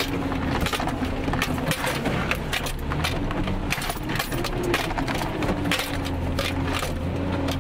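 Nissan VG30 3.0-litre V6 running at low revs in four-low as the truck crawls up a rocky slope, heard from inside the cab, with frequent sharp clicks and knocks from the climb over rocks.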